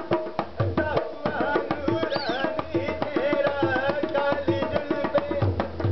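Indian folk music: a tabla-like hand drum plays a quick rhythm with deep bass strokes about once a second, under a gliding melody line.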